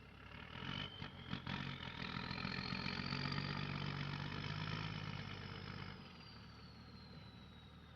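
Logging truck engine pulling hard under load: it swells up and holds for a few seconds, then eases off near the end, with a high whine that climbs and then slowly falls. A few sharp knocks come about a second in.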